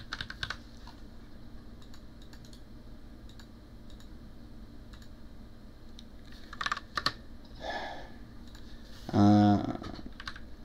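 Computer keyboard typing in short bursts of clicks with a long pause between. Near the end, a brief loud hum from a man's voice.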